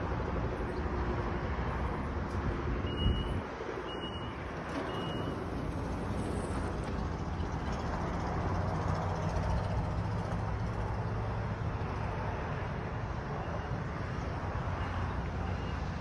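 Amtrak Pacific Surfliner train standing at a platform, its locomotive and coach air-conditioning running with a steady low hum and rumble. A single knock about three seconds in, and three short high beeps about a second apart.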